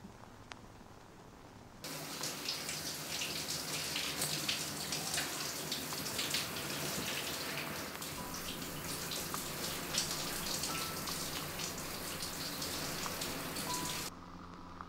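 Shower running: water spraying in a steady hiss with many small splatters as it falls on a person. It starts abruptly about two seconds in and cuts off just before the end, after a quiet room with a faint click.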